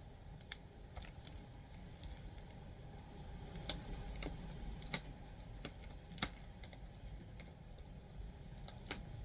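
Fingers and nails picking at plastic shrink wrap on a disc case: scattered light clicks and taps, with a few sharper clicks.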